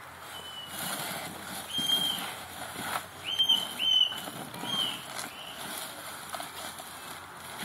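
Wrapping paper and a cardboard box rustling and tearing as a Bengal tiger claws and bites into it, to get at the ox bones inside. Over it come about five short, high chirps, the loudest pair about three and a half seconds in.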